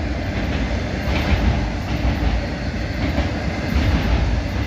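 Freight train of empty autorack cars rolling past, a steady rumble of steel wheels on rail.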